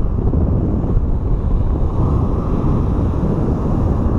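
Strong wind buffeting the microphone in a steady low rumble, with ocean surf washing on the beach underneath.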